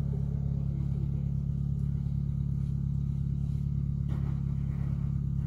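Engine of a stuck off-road 4x4 idling with a steady low hum.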